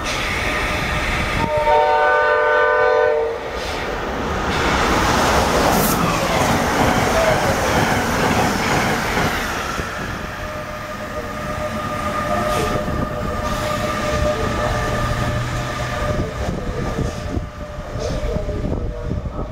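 Amtrak AEM-7 electric locomotive's Nathan K5LA five-chime air horn sounding one short blast of just under two seconds, followed by the rush and clatter of the high-speed passenger train's coaches passing close by.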